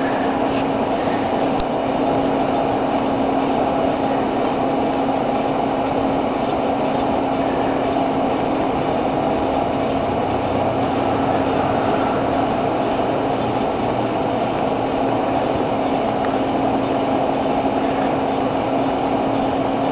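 Whirlpool microwave oven running: a steady electrical hum with a fan rushing behind it, unchanging throughout.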